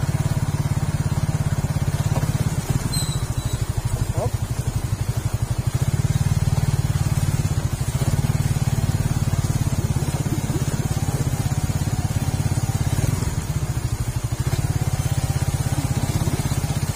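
Suzuki Raider 150 Fi's single-cylinder four-stroke engine running steadily at low revs as the motorcycle rides over a rough, rutted dirt track.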